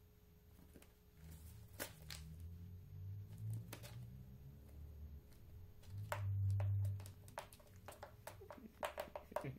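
Faint rustling and scattered clicks of newspaper and a plastic tub as a snake shifts its coils while swallowing a rat, with the clicks coming quicker near the end. A low rumble swells about six seconds in, over a faint steady hum.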